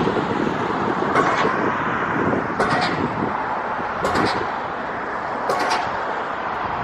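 Steady road-traffic noise, with a short, sharp, hissing sound recurring about every second and a half.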